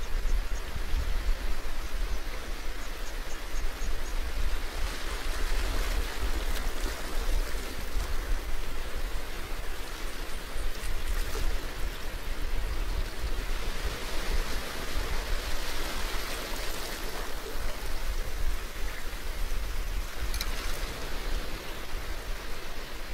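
Steady rushing noise with a deep rumble beneath it and a few faint crackles, part of an electroacoustic soundtrack.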